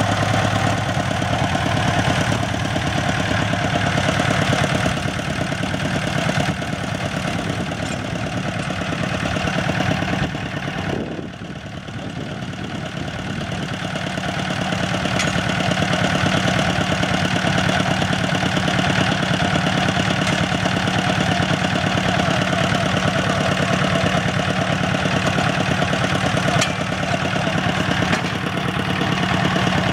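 Engine of a small crawler-mounted well-drilling rig running steadily while it drills. Its level dips about eleven seconds in, then climbs back over the next few seconds.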